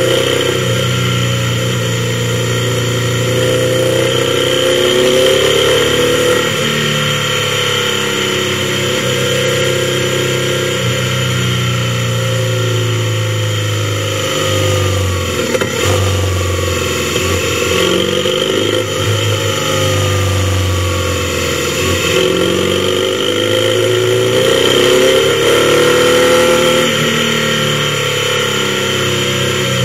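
Motorcycle engine running under way, its pitch falling and rising with throttle and gear changes. It dips briefly about halfway through and climbs again near the end. The sound is picked up by a helmet-mounted action camera.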